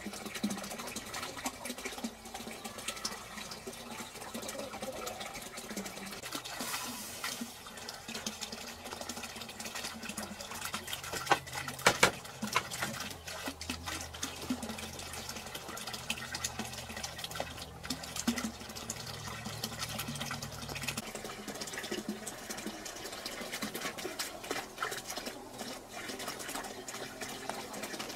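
Water splashing and sloshing, with many small clicks and taps and a couple of sharper knocks about twelve seconds in; a low hum joins for several seconds in the middle.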